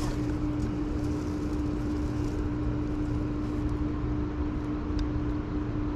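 Steady low motor hum carrying one unbroken held tone, with no break or change in pitch.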